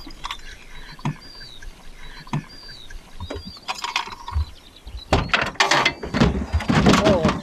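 Metallic clicks, rattling and scraping from hands working at the rear of a van, loudest in several bursts over the last few seconds, with small birds chirping in the background.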